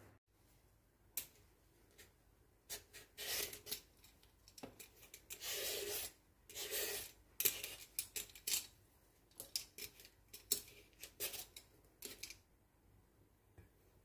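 Vegetable peeler scraping the skin off a young green papaya in a run of irregular rasping strokes, some short and some about a second long. The strokes stop about twelve seconds in.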